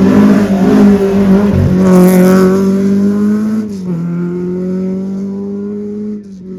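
Rally car engine at high revs, holding a steady pitch. About three and a half seconds in the pitch drops suddenly with an upshift, then climbs again as the car pulls away, growing quieter.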